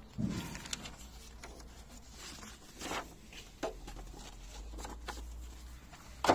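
Paper manual pages being turned and handled: a series of light rustles and flicks, with a sharper tap near the end.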